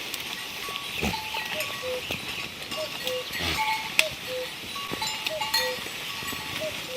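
Goats with bells, the bells clanking irregularly among farm-animal sounds, with a repeating two-note tone throughout.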